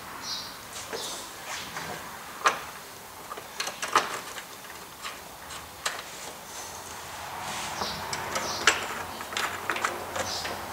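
Scattered clicks and knocks of hands working in a truck's engine bay as the fan shroud bolts and radiator hose are fitted back on. The sharpest knocks fall about four seconds in and again near nine seconds, with a few brief scrapes between.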